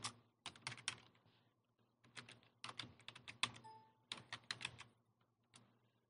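Computer keyboard keys typed in quick bursts of clicks, thinning to a few single keystrokes near the end, over a faint steady hum.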